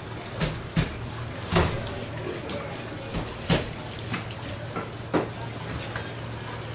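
A heavy kitchen knife cutting Spanish mackerel into steaks on a plastic cutting board: about half a dozen sharp knocks at uneven intervals as the blade goes through the fish and strikes the board.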